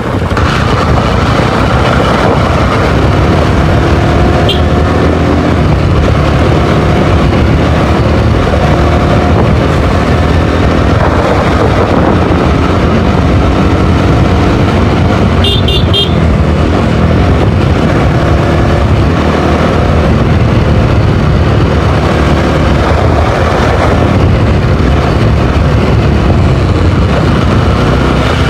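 Motorcycle engine running under way with a loud rumble and wind, its revs rising and falling. A few quick horn toots sound about halfway through.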